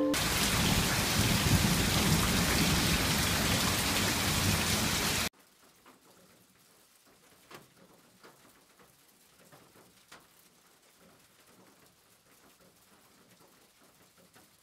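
Steady heavy rain, cutting off suddenly about five seconds in. After that it is nearly quiet, with a few faint light taps of a stylus tip on a tablet screen.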